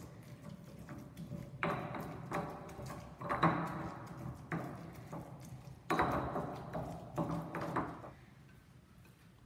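Stone pestle grinding and crushing chiles in a black stone molcajete: three uneven bursts of scraping and knocking, stone on stone through the wet mash. It stops about eight seconds in.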